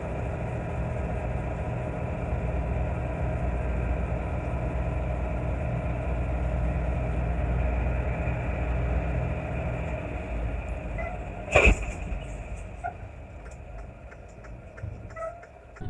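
A heavy vehicle's engine running steadily, then a single sharp bang about three quarters of the way through, after which the engine noise dies down with a few faint clicks.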